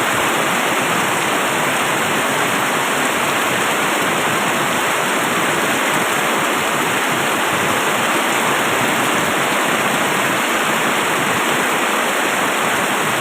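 Steady rain falling: a dense, even hiss that holds the same level throughout.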